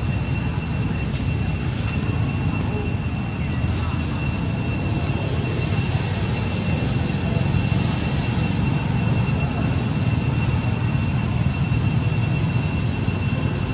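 Steady outdoor background: a constant high-pitched whine over a low rumble, with no distinct events.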